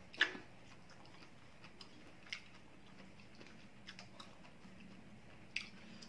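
Eating sounds: a person chewing a mouthful of hot seafood suki, with a few short sharp clicks of a metal spoon in the ceramic bowl, the loudest just after the start.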